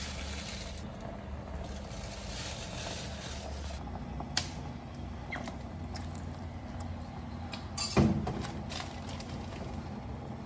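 Broth boiling steadily in a clay pot on a stove, a low even rumble. A sharp click comes about four seconds in, and a louder knock about eight seconds in.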